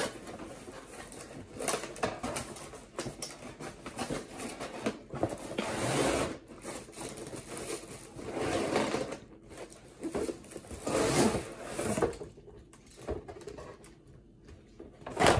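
Cardboard toy packaging being handled: a cardboard insert scraping and sliding as it is worked out of its box, with paper rustling in irregular bursts.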